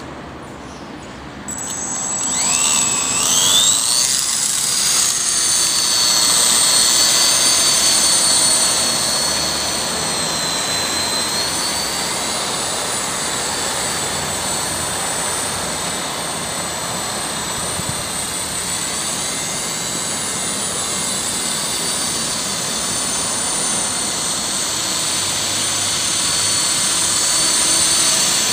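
Walkera 4F180 electric micro RC helicopter spooling up about a second and a half in, its rotor and motor whine rising in pitch, then a steady high-pitched whine with small pitch changes as it flies.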